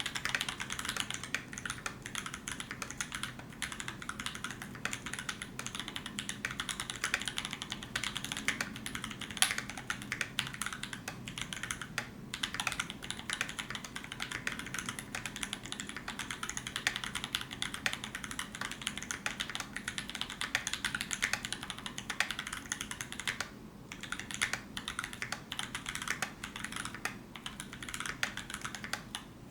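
Continuous fast typing on a Constellation gasket-mount mechanical keyboard with Kiwi tactile switches (lubed with 3203 and fitted with bronze films), a 1.5 mm brass plate and Zeal stabilisers: a dense stream of key clacks, with brief pauses about twelve seconds in and again later on.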